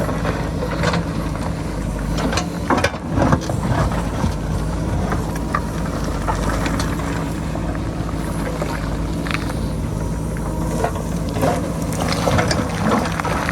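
JCB backhoe loader's diesel engine running steadily under load, with scattered knocks and clatter of rocks and stones falling, a burst about three seconds in and more near the end.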